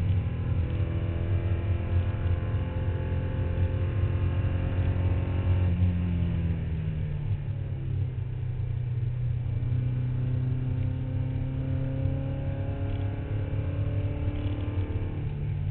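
Porsche 944 Cup race car's four-cylinder engine heard from inside the car at full throttle, the engine note climbing as it accelerates. About six seconds in, the pitch drops on an upshift and then climbs slowly again; it steps up sharply shortly before the end.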